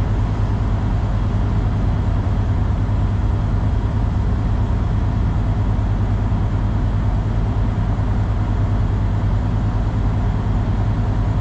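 Idling vehicle engine, most likely a truck's diesel, a steady low drone that does not change.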